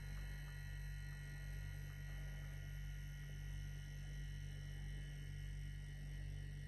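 Steady low electrical hum at mains frequency with its overtones and a few faint steady high tones, unchanging throughout.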